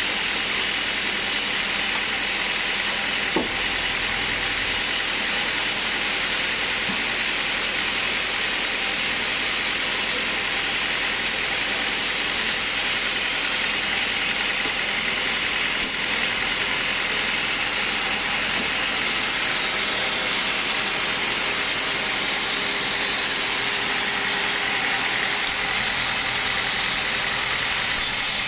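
Band sawmill running steadily, its band blade spinning with an even hiss, with a single short click about three seconds in.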